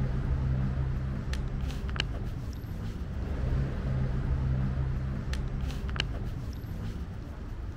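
Steady low rumble and hum of city street background, with a few faint short clicks.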